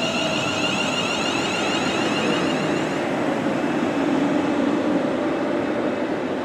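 Electric multiple-unit train running along the platform: traction motor whine that fades out about three seconds in, under a steady wheel-on-rail rumble that swells a little near the end.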